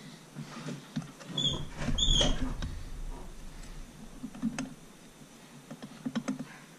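Light clicks and knocks of metal outboard powerhead parts being handled during piston installation, with a heavier thump about two seconds in. Two short high squeaks come just before and with the thump, and a quick run of sharp clicks comes near the end.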